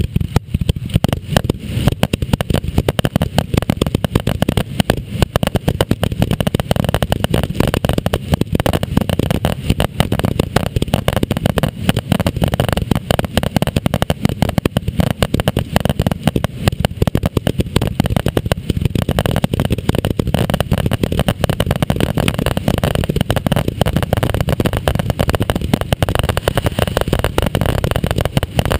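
Aerial fireworks going off in a rapid, unbroken barrage of bangs and crackles, one burst overlapping the next, with a heavy low rumble, recorded on a GoPro's microphone.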